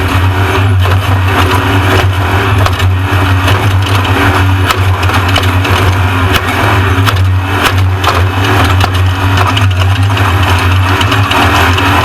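Off-road race truck running at speed, a steady deep drone with constant rattling and frequent sharp knocks from the truck working over rough ground.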